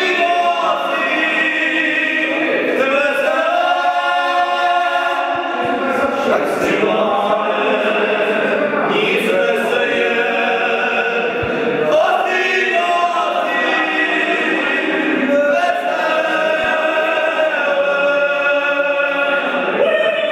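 A small group of men singing a Moravian folk song together, unaccompanied, in several voices, with long held notes and short breaks between phrases.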